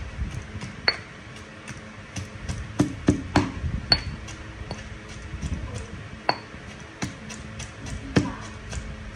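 Granite pestle pounding chillies and garlic in a stone mortar for shrimp-paste chilli dip. Irregular dull strokes come, some with a brief high ring of stone on stone.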